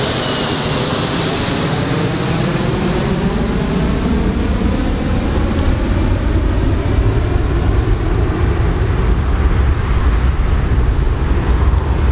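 Four-engine jet airliner flying away: a high engine whine falls in pitch as the aircraft recedes, over a continuous jet roar with a sweeping, phasing quality. A deep rumble grows stronger in the second half.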